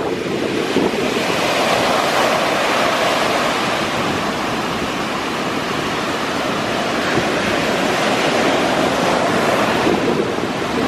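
Sea surf washing steadily on the shore, mixed with wind buffeting the microphone.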